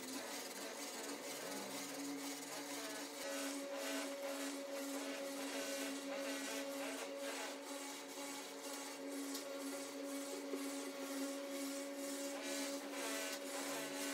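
A small electric motor running with a steady hum.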